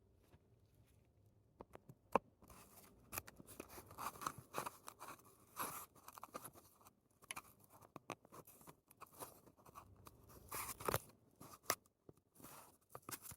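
Close-miked ASMR handling sounds: irregular crunchy rustles and small clicks, starting about a second and a half in.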